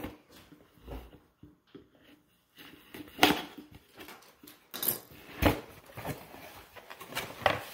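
Cardboard subscription box being opened with a small folding knife: the tape slit, the knife set down on a stone countertop, and the box handled and turned over, with several sharp knocks and cardboard rustling.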